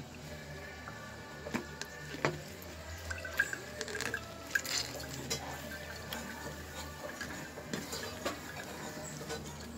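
Passion fruit juice being pressed and strained through a mesh cloth into a bowl: wet squelching and dripping with scattered small clicks and knocks as the pulp is worked against the mesh.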